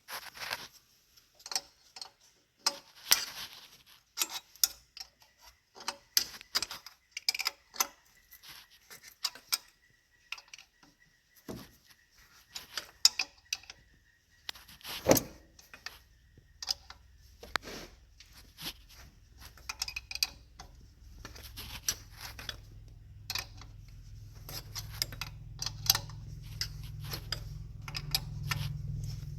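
Scattered metallic clicks and clinks of hand tools and loose bolts worked in a car's engine bay, irregular and sharp. A low steady hum comes in about two-thirds of the way through.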